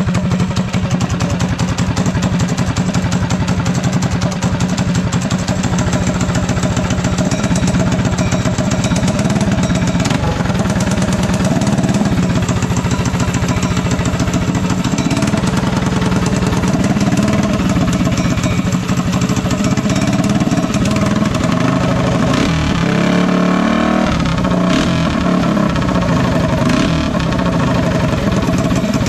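Small single-cylinder go-kart engine with a freshly installed 308 drag-racing cam, running steadily and loud through an open, unmuffled exhaust pipe shortly after a cold start. About three quarters of the way through, the engine speed wavers and dips briefly before settling again.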